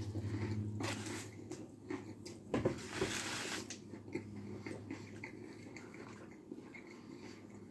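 A bite into a crispy fried chicken sandwich, then chewing with a few short crunches. A low steady hum sits under the first second or two.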